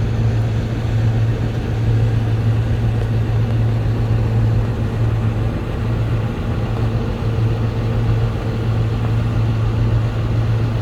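Harvest machinery engine running steadily at one speed, a constant low drone over mechanical noise.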